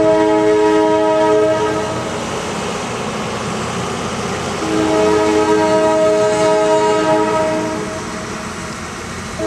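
Train air horn sounding a chord in two long blasts: the first right at the start, lasting about two seconds, the second from near the middle, lasting about three seconds. Between and under the blasts is the steady rumble of passenger cars rolling past over the crossing.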